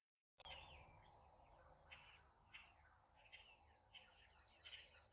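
Faint chirps and short calls from several small birds over a low steady outdoor rumble. They start about half a second in, after a moment of dead silence.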